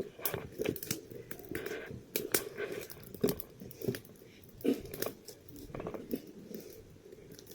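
Irregular light clicks, taps and crinkling of small objects being handled, about a dozen scattered through, with no steady rhythm.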